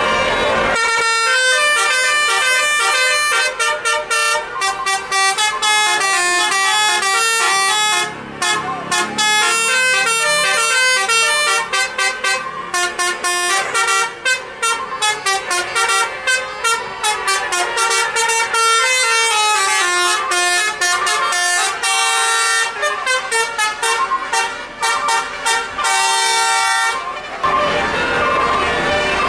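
Bus 'telolet' horn, a multi-tone air horn playing a long, fast melody of short stepping notes. It starts about a second in and stops shortly before the end.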